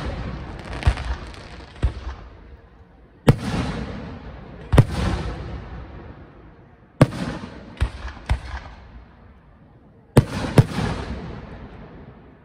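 Aerial firework shells bursting overhead: a series of sharp booms, some in quick pairs, each trailing off in a long fading echo over several seconds.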